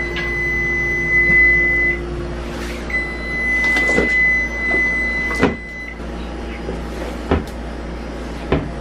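Wooden kitchen cabinet doors knocking a few times, over a steady high electronic tone that sounds for about two seconds, stops briefly, then sounds for about three seconds more, with a low appliance hum beneath.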